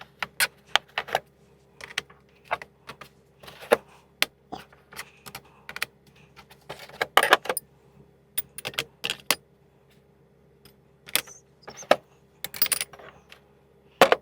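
Metal sockets clinking and clicking as they are handled and set onto Ernst Socket Boss socket rails. Irregular clinks come in clusters, with a short lull a little past the middle.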